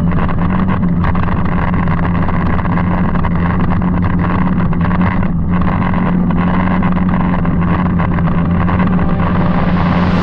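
Can-Am Commander side-by-side's V-twin engine running at a steady speed, its pitch holding level throughout.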